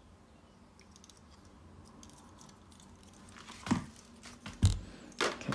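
Handling noise from a metal-and-plastic Gundam action figure: a few seconds of low room tone, then a few small clicks and a soft knock near the end as its parts are moved.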